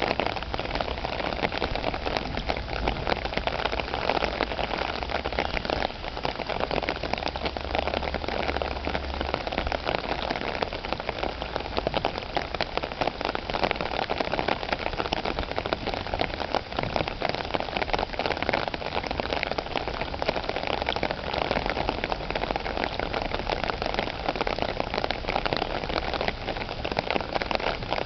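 Steady summer rain falling, a dense, even patter of countless drops. A low rumble runs underneath for the first nine seconds or so.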